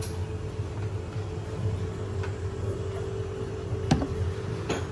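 Steady machine hum with a faint steady tone, with a sharp click about four seconds in.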